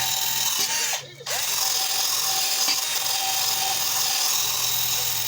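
Electric drill spinning an abrasive wheel against a cast iron tea kettle: a steady high motor whine over grinding hiss. About a second in it is let off briefly, the whine dipping and then running back up.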